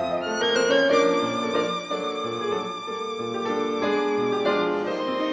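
Background music: a violin playing a melody with vibrato over held lower notes.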